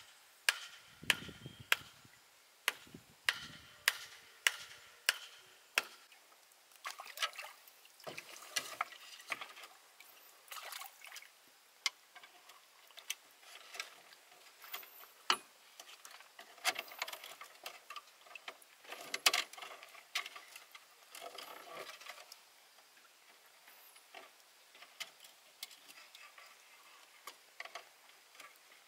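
A series of sharp knocks, about two a second for the first six seconds, then more scattered and uneven.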